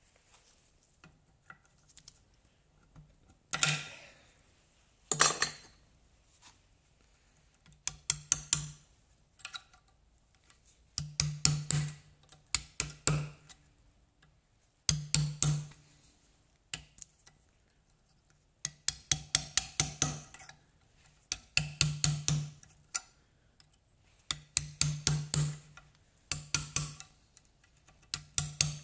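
Short, irregular bursts of rapid metallic tapping on the Suzuki LT50's rear hub bearing as it is worked loose for removal, with pauses of a second or two between bursts.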